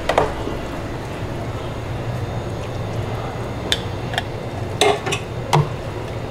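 Light clinks and taps of dishes and serving utensils as side dishes are plated: one near the start and a handful more in the second half. Under them runs a steady low hum of kitchen machinery.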